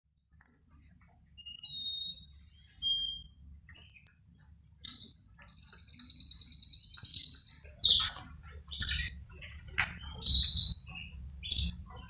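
Male canary singing: short high whistled notes that step down in pitch, then long fast trills held for several seconds, with sharp clicks in the second half.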